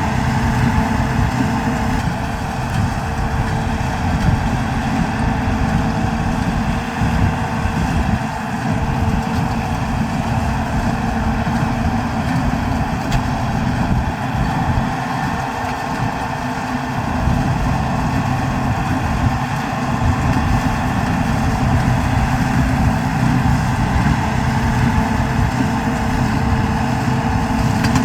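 New Holland TD110D tractor's diesel engine running steadily.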